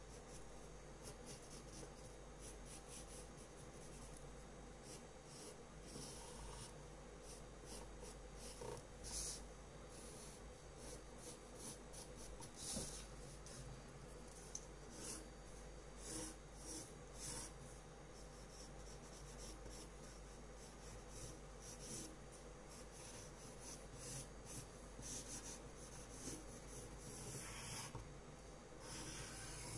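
Pencil scratching faintly on drawing paper in many short, irregular sketching strokes.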